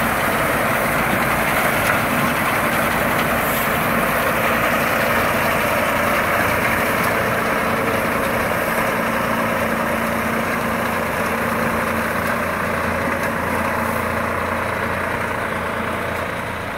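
Tractor engine running steadily, driving a Yapel TDG 180 reaper-binder through its power take-off.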